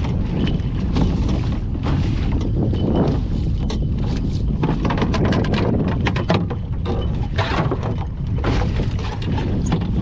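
Wind buffeting the microphone aboard a sailboat under way, a heavy steady rumble with the rush of the boat's motion, broken by a run of short sharp knocks or slaps about halfway through.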